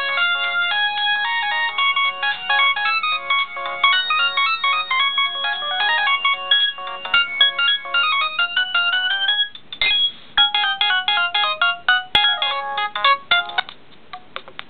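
LG A100 mobile phone ringtones playing: quick, bright electronic melodies of short notes, with a brief noisy break about ten seconds in where the tune changes.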